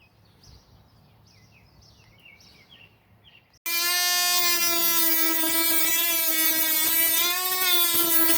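Faint birds chirping for the first few seconds, then, after an abrupt cut, a bladed electric power tool cutting into material with a loud, steady, high whine that sags slightly in pitch near the end.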